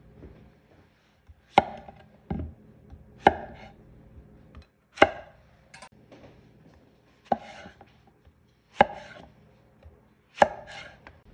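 Chef's knife cutting through a zucchini and knocking on a wooden cutting board: about seven separate sharp cuts, one every second or two, as the ends are trimmed and the zucchini is sliced into planks.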